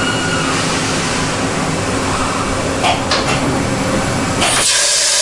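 CNC horizontal machining center running: a steady mechanical hum with hiss, a couple of short clicks about three seconds in, and a louder hiss for about a second near the end.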